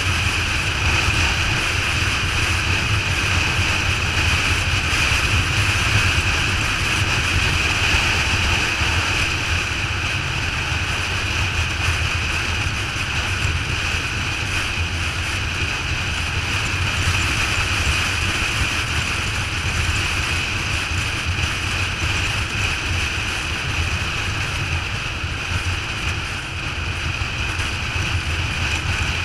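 Motorcycle cruising at highway speed: a steady rush of wind on the microphone over the low drone of the engine.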